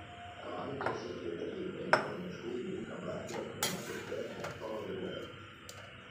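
A few sharp clinks of metal kitchenware, steel pan and utensil knocking together, the loudest about two seconds in, over a faint murmur of voices.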